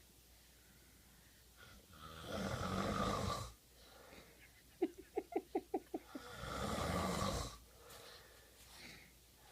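A man snoring: two long, rasping snores about four seconds apart. Between them comes a quick run of about seven short, high-pitched sounds, the loudest moment in the stretch.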